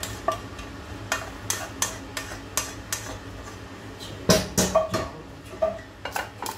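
A metal spoon scrapes and knocks against a frying pan and an aluminium pot: a string of sharp clinks and scrapes, some with a short metallic ring. The loudest clatter comes about four seconds in, as the pan is put down and a slotted spoon goes into a steel colander of parboiled rice. A low steady hum runs underneath.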